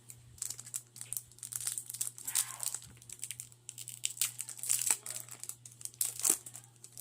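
Foil wrapper of a Pokémon card booster pack crinkling in a run of irregular crackles as it is handled and torn open by hand.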